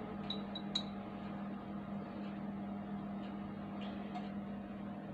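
Steady low hum, with a few faint light clicks in the first second.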